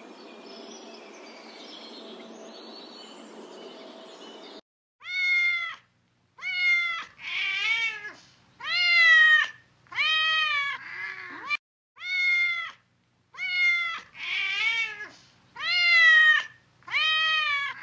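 Domestic cat meowing over and over: about a dozen separate meows, each under a second long and rising then falling in pitch, with short gaps between them. They begin about four and a half seconds in, after faint steady background noise.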